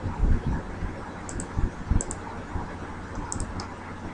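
Computer mouse buttons clicking a few times, several as quick press-and-release pairs, along with a few dull low thumps over a steady low hum.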